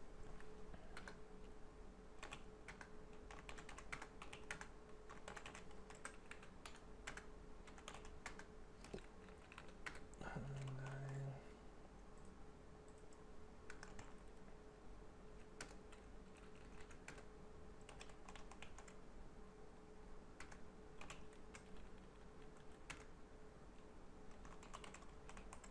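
Typing on a computer keyboard: faint keystrokes in irregular runs, busiest in the first ten seconds, then in sparser bursts. A faint steady hum runs underneath.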